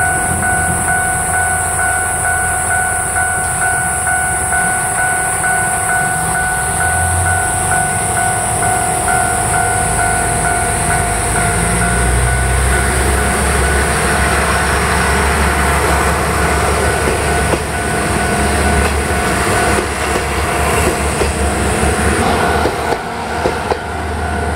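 Kanto Railway Kiha 0 series diesel railcar engine running at the platform, then working harder as the railcar pulls away and passes close by. A few wheel clacks over rail joints come near the end.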